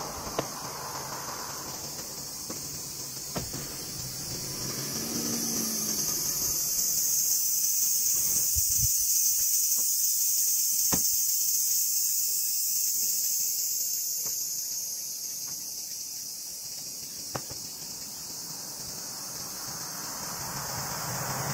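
High-pitched insect chorus that swells louder through the middle and fades again, with a few faint clicks.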